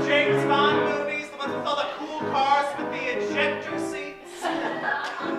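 A man singing a show tune in a live musical, with piano accompaniment.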